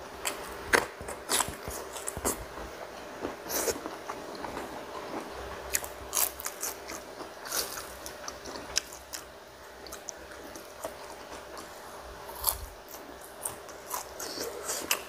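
A person chewing and crunching food close to a clip-on microphone, with irregular sharp crunches and clicks.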